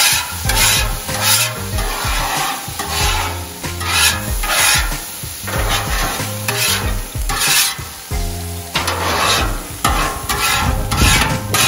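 A metal scraper and spatula scrape back and forth in quick, repeated strokes across a hot Blackstone griddle's steel top. Water sizzles and boils off into steam, loosening the stuck-on food residue as it is scraped away.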